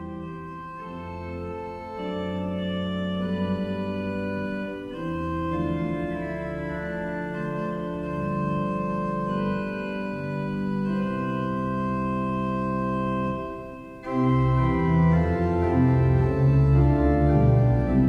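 Organ music playing slow sustained chords that change every second or two. About three quarters of the way through it dips briefly, then comes back louder with a fuller bass.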